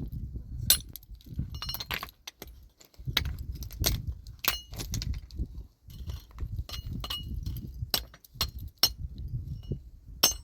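Repeated sharp clinks and knocks of hard objects, several with a brief ringing tone, coming irregularly over a low rumble.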